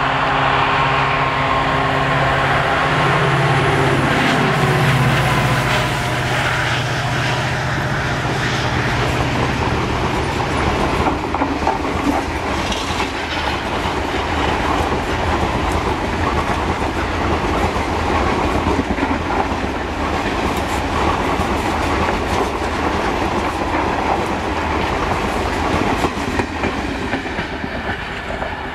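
EMD WDP4 diesel locomotive passing close by at speed, its engine drone dying away about ten seconds in. A long train of passenger coaches then rolls past with a steady clickety-clack of wheels over the rail joints.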